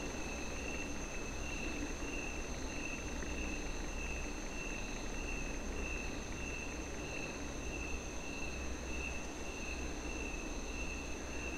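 Crickets chirping steadily in the background, a thin high trill pulsing evenly, over faint hiss.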